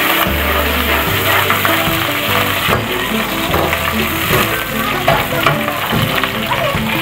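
Sliced bitter gourd and onions sizzling in hot oil in a steel karahi, stirred and scraped with a metal slotted spoon. Background music with held low notes plays over it.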